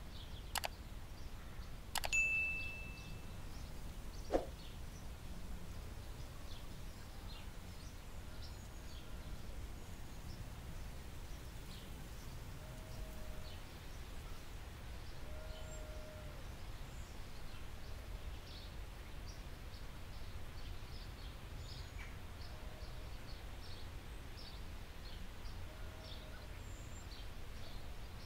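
A metal measuring spoon clinks against a glass bowl about two seconds in, with a short ring, followed by a softer knock a couple of seconds later. After that, a steady low hiss with scattered faint high chirps.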